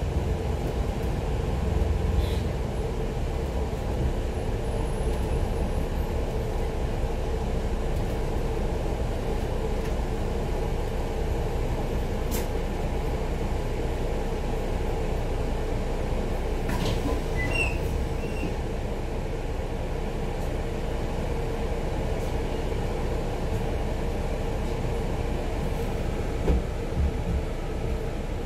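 Steady running noise of a double-decker bus heard from inside the cabin: a low engine and road rumble with a constant hum. There are a few faint high clicks or beeps about two-thirds of the way through, and a couple of brief knocks near the end.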